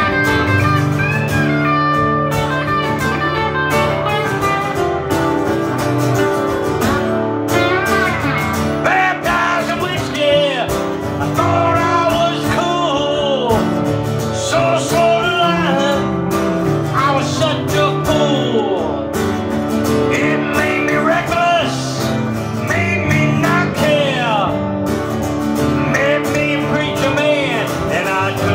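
A small band playing a bluesy country-rock song on guitars: an electric guitar playing lead lines with bent notes over strummed acoustic guitar, with singing in places.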